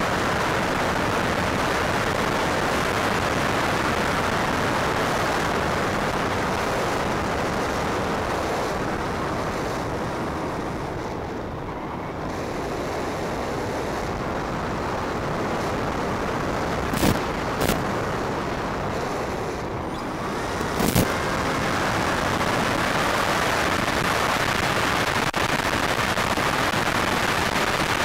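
Steady rushing hiss on the audio of a small RC plane's FPV video link, with no motor whine in it. It dips twice briefly and has a few sharp crackles about two-thirds of the way through.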